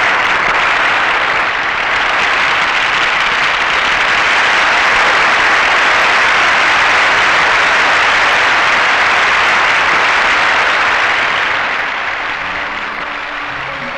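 A large audience applauding: dense, steady clapping that dies down near the end as music comes back in.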